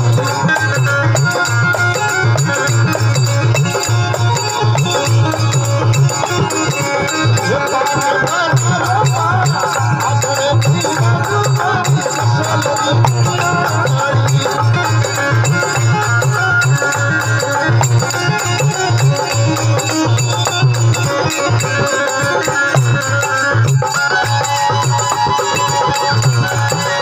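Rajasthani devotional folk song music playing: a steady percussion rhythm of drum and rattle under melodic instruments.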